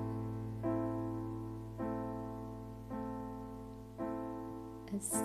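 Soft piano chords in a sholawat song's instrumental break, a new chord struck about once a second and fading away, over a steady low bass note. A short hiss comes near the end.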